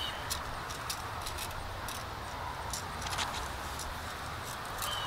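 Metal fan rake dragged through loose garden soil: a scratchy raking sound with many light, irregular clicks and clinks from the tines.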